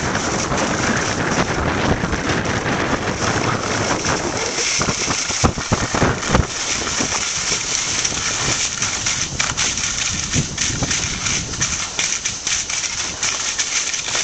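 Wind rushing over the microphone of a camera carried on a fast ski run, with skis hissing and scraping on snow. A few sharp knocks come about five to six seconds in.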